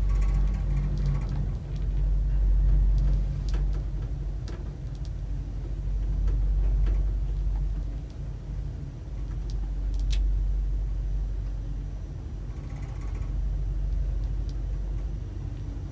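Hitachi Build-Ace Quality elevator car travelling upward: a steady low rumble and hum, with a few faint clicks.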